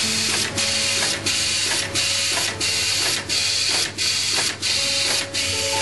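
PCB auto insertion machine running: a loud, steady hissing mechanical noise broken by short, regular dips about every two-thirds of a second.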